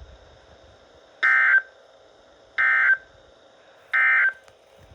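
Emergency Alert System end-of-message signal: three short bursts of shrill digital SAME data tones, about 1.4 s apart, marking the end of the severe thunderstorm warning.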